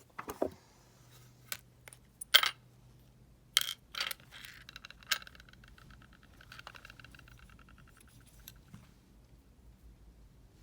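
Small metal deadbolt parts and a pinning tray being handled, with several sharp metallic clinks, the loudest about two and a half seconds in. A fainter fast rattle follows and fades out over a few seconds.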